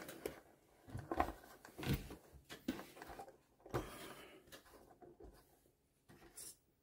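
Hands handling a plastic RC crawler on a wooden tabletop: several light knocks and rubbing sounds as the truck is lifted, turned around and set down, growing quieter after about four seconds.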